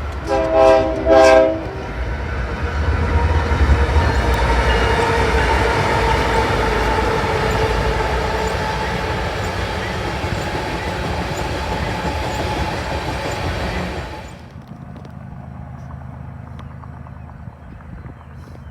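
GE ES44AC diesel locomotive sounding its horn in two short blasts, then the train passing with loud steady engine rumble and wheel noise. About fourteen seconds in the loudness drops sharply to a quieter steady rolling of the train.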